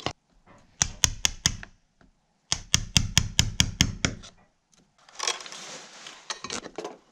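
A wood chisel being struck into a log wall in two quick runs of blows, about four and then about eight, chopping out wood. From about five seconds in, rough scraping as the wood is pared and cleared.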